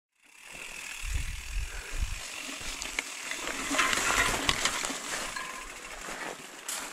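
Mountain bike ridden along a rough dirt trail and through overhanging bushes: tyres on dirt and gravel, the bike rattling and clicking, and leaves brushing past. There are low thumps on the mic in the first couple of seconds.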